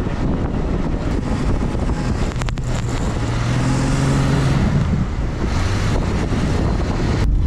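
Jeep driving on a snow-covered road: a continuous low rumble of engine and tyres under rushing wind noise. An engine hum comes through for a couple of seconds in the middle.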